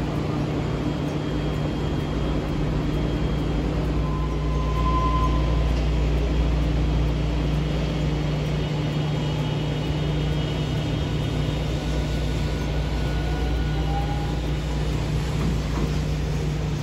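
Green Mover APEX low-floor articulated tram running slowly past on the station tracks, a steady low hum and rumble with a couple of brief high whines.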